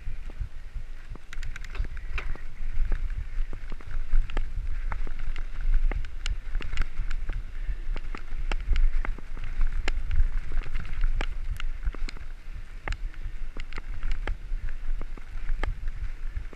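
Mountain bike riding fast down a dirt trail: tyres rolling and crunching over the packed dirt and gravel, with frequent sharp clicks and rattles from the bike over a steady low rumble of wind and vibration on the camera's microphone.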